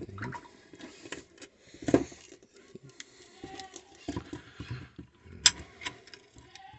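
Irregular clicks, taps and knocks of small parts being handled during hands-on assembly work, with a thump about two seconds in and a sharp click about five and a half seconds in.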